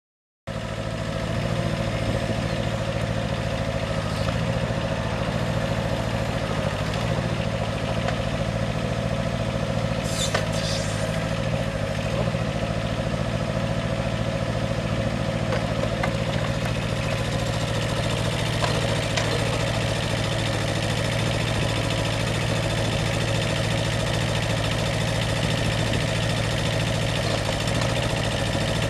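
Two-cylinder Yanmar diesel engine of an IHI 9NX2 mini excavator running steadily at a constant speed. A short hiss comes about ten seconds in.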